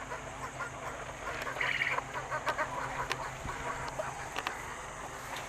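Game chickens clucking and calling in their pens, with one louder squawk about two seconds in.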